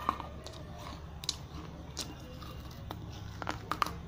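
Biting and crunching a piece of fired clay pot (kulhad): sharp, crisp cracks come one at a time, then three in quick succession near the end.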